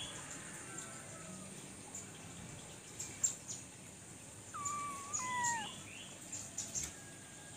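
Small birds chirping in short, high peeps scattered throughout, with one clear pitched call about a second long around the middle that drops in pitch at its end.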